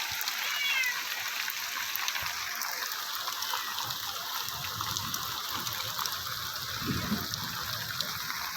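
Heavy rain falling steadily, an even hiss with scattered drips. A cat meows once, briefly, about half a second in.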